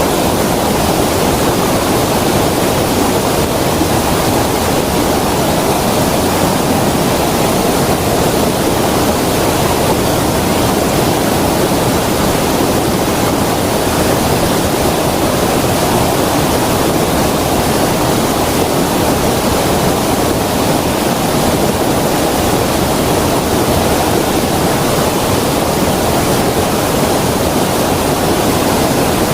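Creek water rushing, a loud, steady, unbroken rush with no pauses.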